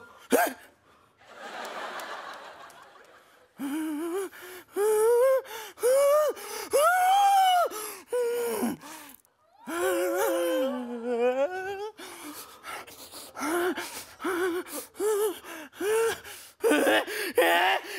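A man whimpering and gasping in fright. A breathy gasp in the first few seconds gives way to a string of short, high, rising-and-falling whines, with one longer wavering whine about midway and a quicker run of short ones near the end.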